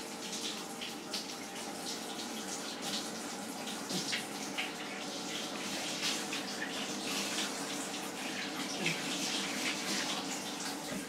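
Water running steadily, like a tap left on, over a steady hum. It stops suddenly at the very end.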